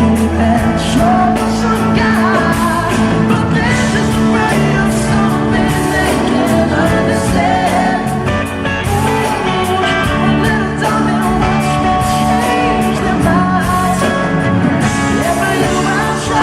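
Live band performance of a pop ballad with sung vocals over a full band, loud and continuous.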